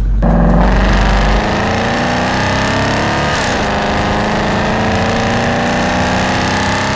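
Loud outro sound: a sustained, engine-like droning chord that slowly rises in pitch, with a deep rumble at the start and a brief swoop about three and a half seconds in.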